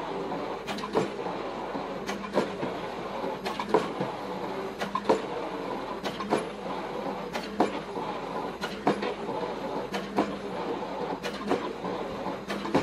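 Excavator-mounted pile hammer driving a precast concrete pile: sharp knocks in close pairs about every 1.2 seconds over the excavator's steady engine hum.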